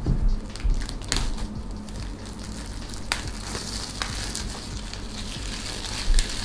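Clear plastic shrink-wrap crinkling as it is peeled off a cardboard box, with a few sharp crackles.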